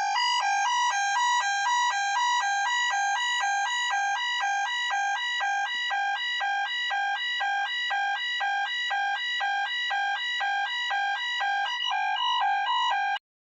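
Emergency alert attention tone: two electronic tones alternating rapidly, several times a second, at an even level. It cuts off abruptly near the end.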